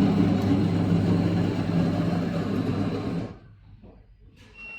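Coffee vending machine running as it makes a drink: a steady motor-and-pump hum that stops abruptly about three seconds in, followed near the end by a short high electronic beep.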